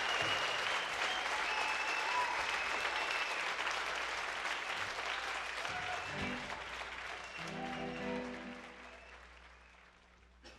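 Audience applauding and cheering with some whistling after a song, the applause dying away. As it fades, a few pitched notes are played on a guitar.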